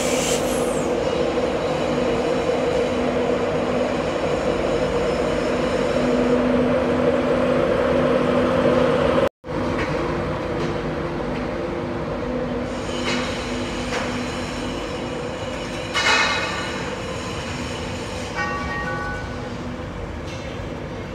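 LNER electric train at a station platform: a steady drone with a low hum from the Class 91 locomotive, then Mark 4 coaches rolling slowly past. The sound cuts out briefly about halfway through, and there is a short higher tone about three-quarters of the way in, followed by a few beeps near the end.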